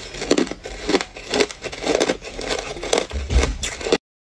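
Hard ice cubes being crunched between the teeth close to the microphone. A steady run of crisp crunches, about three a second, stops suddenly near the end.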